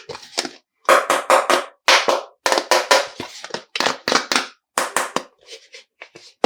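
Plastic toy pieces and packaging being handled, giving quick clusters of sharp clicks and crackles about every half second, quieter near the end.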